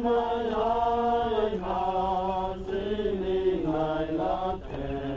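A group of men singing a hymn together, holding long, drawn-out notes and moving from one note to the next.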